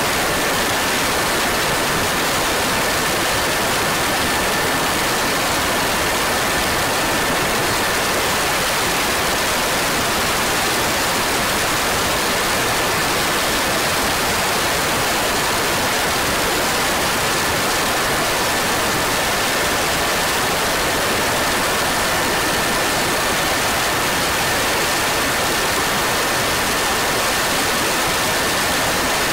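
Steady, loud wind rush over the microphone of a 360 camera mounted on a moving racing kart, an even hiss with a faint constant high whine through it; no engine note or change in speed stands out.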